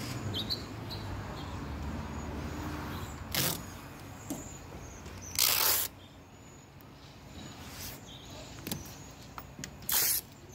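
A trigger spray bottle spritzing three times: a short spritz about three seconds in, a longer one about five seconds in, and another near the end.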